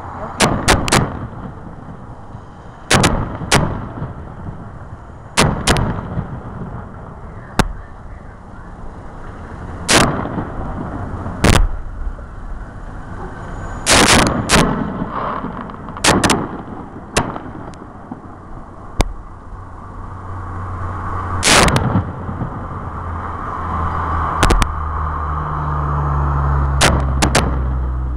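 Aerial fireworks shells bursting overhead: a sharp bang every few seconds, sometimes two in quick succession. A low steady rumble builds in the second half.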